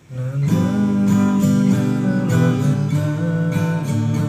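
Acoustic guitar strummed in a steady down-down-up pattern, chords ringing from just after the start: a demonstration of the song's strumming rhythm.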